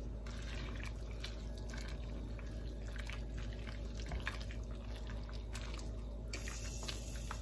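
Wooden spatula stirring leafy greens into hot broth in a stainless steel soup pot: wet sloshing and small irregular clicks and drips, over a steady low hum.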